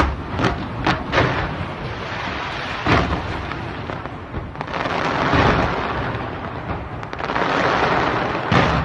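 Fireworks going off: several sharp bangs in the first three seconds, then a dense, steady crackle of many shells, with another bang near the end.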